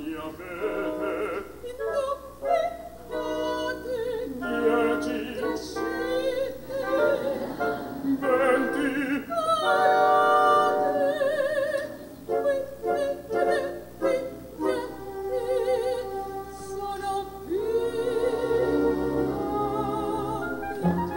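Opera singing with strong vibrato: solo voices trading short sung phrases in Italian, over an orchestral accompaniment.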